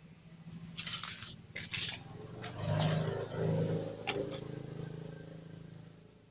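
A few brief scraping, rustling handling noises, then an engine running in the background that swells about halfway through and slowly fades away.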